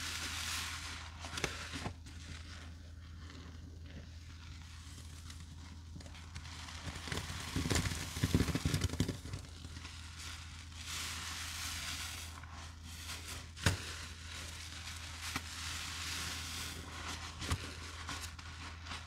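Gloved hands squeezing and working sponges loaded with cleaning paste and scouring powder: soft wet crackling and squishing of foam that comes and goes in waves, with a few sharp clicks and a short run of low thuds about eight seconds in. A steady low hum sits underneath.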